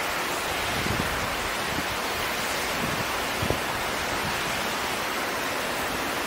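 Steady wind noise rushing over the microphone on a moving chairlift, with a faint knock about three and a half seconds in.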